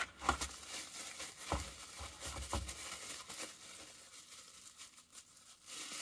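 Bubble wrap crinkling and rustling as hands unwrap a small plastic fuel pump: a run of light, irregular crackles, busier in the first few seconds and fainter after.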